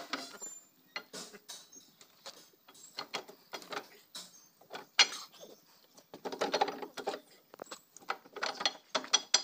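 Irregular metallic clicks, knocks and rattles of hand tools and steel parts being worked on a backhoe loader's lift arm and cylinder during an oil seal replacement, with one sharp click about halfway through.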